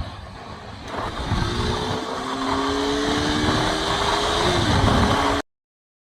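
Motorcycle riding at speed, its engine note rising slowly under acceleration beneath heavy wind noise on the microphone. The sound cuts off suddenly near the end.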